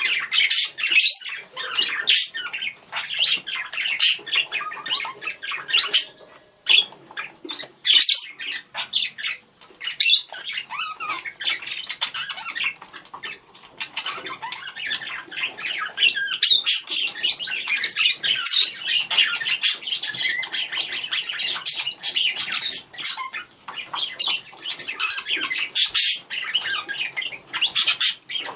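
Budgerigars chattering and calling to each other: a steady stream of warbles, chirps and sharp squawks with quick rising and falling notes, busiest in the second half.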